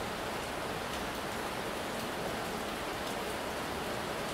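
Heavy rain pouring steadily, splashing onto a wet tiled porch floor: an even, unbroken hiss.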